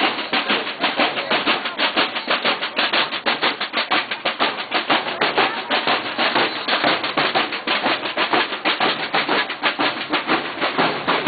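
Marching snare drums playing a fast, steady cadence, about six or seven strokes a second.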